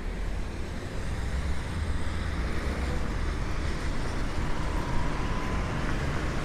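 City street traffic: a steady wash of car engine and tyre noise with a heavy low rumble.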